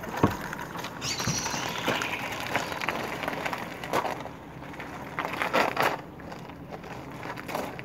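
Footsteps crunching on gravel as a moped is wheeled across the stones, with a denser stretch of crunching from about a second in and another burst of steps near six seconds.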